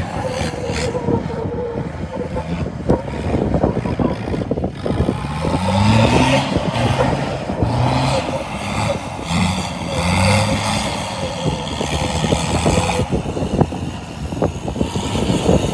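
Off-road 4x4's engine revving under load in repeated rising pulls, with many knocks and rattles as it drives over rough, dry trail.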